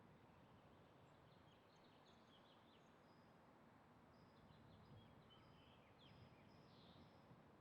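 Faint background hiss with small birds chirping, short high chirps scattered through it.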